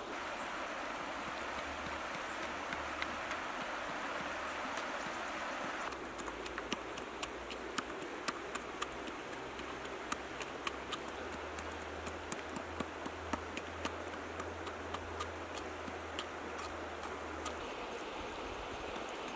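Steady rushing of river water for about six seconds. Then the sound changes abruptly to a thinner hiss broken by many sharp crackles and pops from the wood-ember fire roasting the fish.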